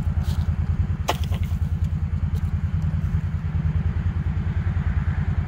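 Quad (ATV) engine running steadily with an even low throb, and a single sharp click about a second in.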